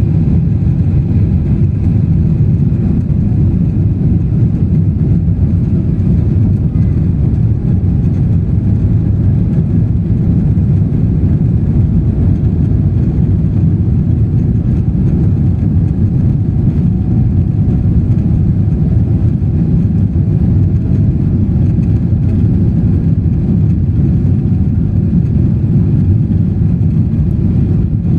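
Airplane during takeoff: a steady, loud low rumble of engines and rushing air that holds the same level throughout.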